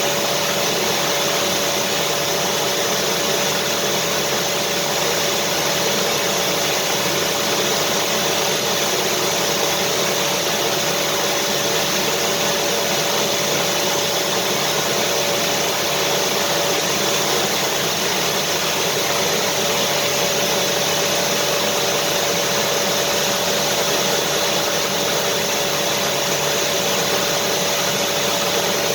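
Vacuum cleaner motor running steadily, a constant rushing noise with a steady whine.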